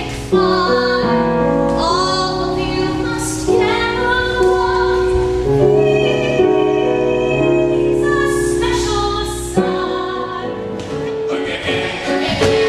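Musical theatre song: singing voices holding long notes over an accompaniment with a steady low bass. About ten seconds in, the held bass drops out and the music turns busier and more rhythmic.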